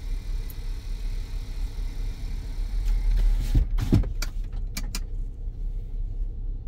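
2007 Kia Sedona engine idling steadily, with a few sharp clicks and knocks about three and a half to five seconds in.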